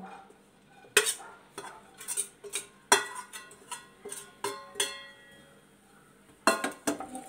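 Metal spoon knocking and scraping against a steel bowl and a frying pan as grated coconut is tipped out and stirred in the pan: a string of sharp, briefly ringing clanks, loudest about a second in and about three seconds in, then a short pause before a few more near the end.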